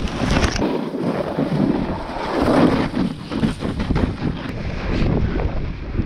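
Wind rushing over the microphone of a camera carried down a slope on a snowboard, buffeting unevenly, with the board scraping and chattering over the snow.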